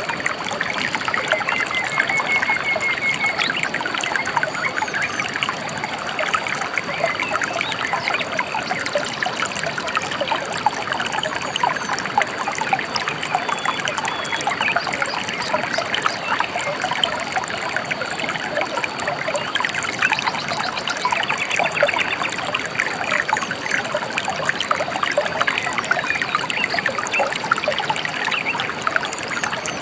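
Gently flowing river trickling and babbling steadily, with a few faint bird chirps here and there.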